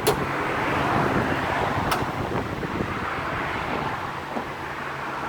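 Two sharp clicks about two seconds apart from a 2012 Honda Fit that clicks but will not crank, over a steady rushing noise.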